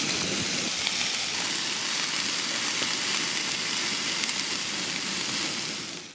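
Pot of water at a rolling boil on a portable gas camp stove: steady bubbling hiss, fading out near the end.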